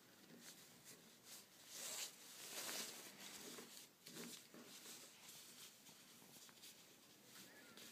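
Faint rustling of fabric handled by hand as a skirt waistband is folded and pinned, loudest about two to three seconds in.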